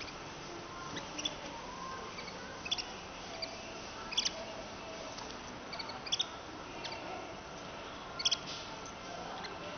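Canaries giving short, high chirps and calls every second or so, some in quick doubles, over steady room noise.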